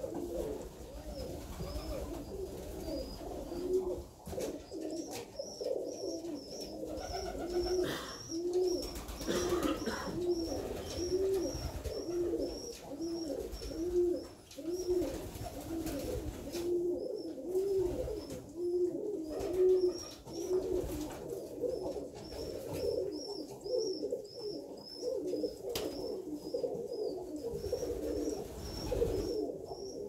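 A flock of Alföldi-Körösi tumbler pigeons cooing continuously, many low coos overlapping in a rhythmic run.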